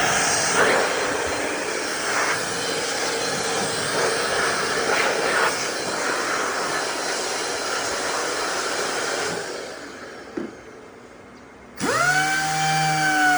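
A power tool working on material, giving a loud, steady hissing grind for about nine seconds before it fades out. Near the end a small high-speed motor spins up sharply into a steady whine.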